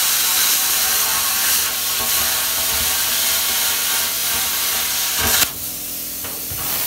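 Parkside PPS 30 A1 plasma cutter's air plasma arc cutting through painted sheet metal with a loud, steady hiss. The arc stops sharply about five seconds in, leaving a quieter hiss.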